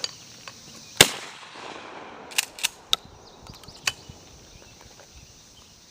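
A single 12-gauge shotgun shot at a thrown clay about a second in, with a short echo trailing off. A few sharp clicks follow over the next three seconds.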